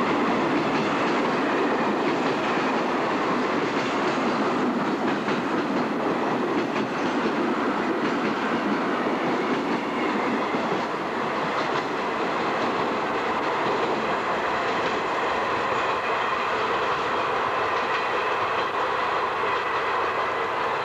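Passenger train carriages rolling past a station platform at close range: a steady rumble and rattle of the train, with occasional clicks of the wheels over rail joints.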